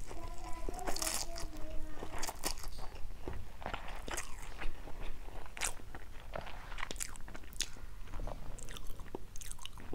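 Close-miked chewing of a mouthful of stir-fried instant noodles with seafood: wet mouth sounds made of many small irregular clicks and smacks.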